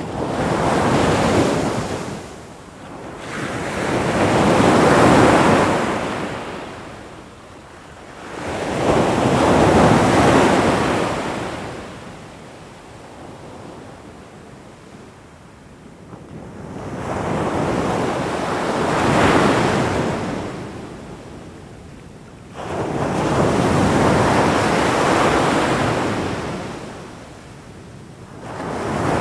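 Ocean surf: waves breaking and washing in, the hiss swelling and fading in five slow surges, with a longer lull in the middle.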